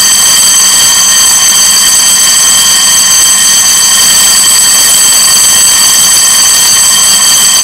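National 6-inch electric gong bell ringing continuously on mains power, its clapper hammering the metal dome with a steady ring made of several high tones; pretty loud, about 125 dB on a decibel meter. It cuts off abruptly as the power is switched off.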